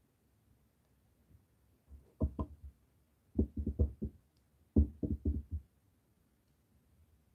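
Dull knocking in three quick runs of several taps each, the loudest run a little after the middle.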